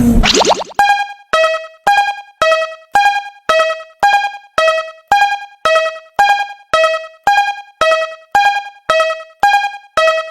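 Japanese railroad crossing alarm ringing its 'kan-kan' bell, alternating between a higher and a lower tone at about two strikes a second. A short noisy rush comes just before the ringing starts.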